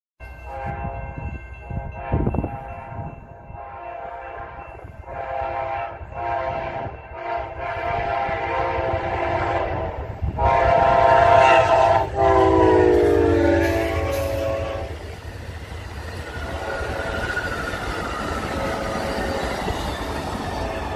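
Amtrak GE Genesis diesel locomotive sounding its air horn for the crossing in a run of blasts, the longest and loudest near the middle, its chord dropping in pitch as the locomotive passes. The steady rumble and wheel clatter of the passenger cars rolling by follows.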